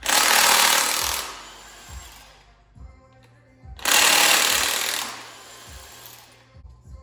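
An impact wrench rattles in two bursts of about a second and a half each, loosening bolts on a Ford 5.0 Coyote V8 on an engine stand as its cylinder heads come off. Background music with a steady soft beat plays under it.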